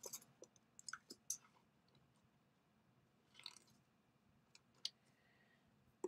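Near silence with a few faint clicks and crinkles of tearing tape being pulled from the roll, torn and pressed onto cardstock.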